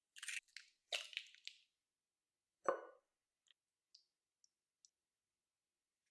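Soft, wet food-handling sounds in a kitchen bowl during the first second and a half, then a single knock about two and a half seconds in, followed by a few faint ticks.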